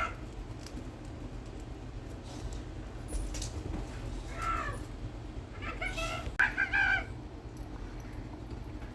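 A cat meowing, four short calls spread through the few seconds, over a faint steady hum.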